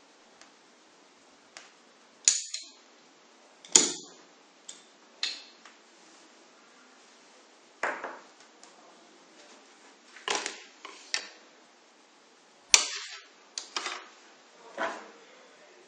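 Sharp clicks and snaps of small plastic and metal parts as an optical fiber is prepared and loaded into a fusion splicer, about a dozen irregular clicks with the loudest a little after two seconds, near four seconds and near thirteen seconds in.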